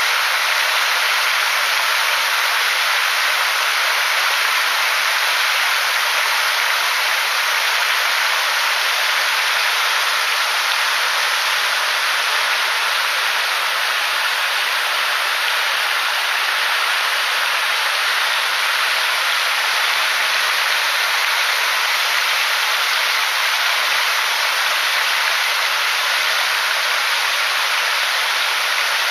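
Water spilling over a low wooden weir across a small river and splashing into the pool below: a steady rushing hiss that holds even throughout.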